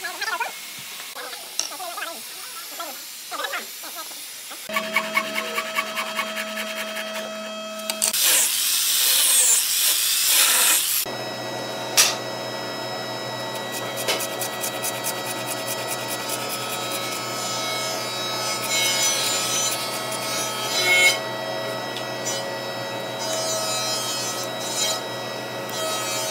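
Hand work on heavy hardwood joinery: wood rubbing, scraping and knocking as large beams are fitted and pared. About 8 seconds in there is a loud noisy burst lasting a few seconds, and from about 11 seconds a steady hum runs under the scraping.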